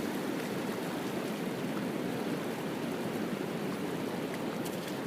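Shallow river flowing over rocks: a steady, even rush of water.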